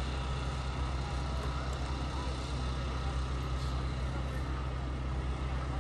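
A steady low rumble, like an engine running, over an even outdoor background hiss.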